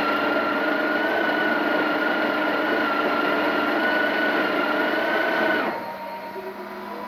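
Breville 980XL espresso machine's built-in grinder grinding coffee with a steady motor whine, stopping suddenly about five and a half seconds in. A quieter steady hum with a faint tone is left after it stops.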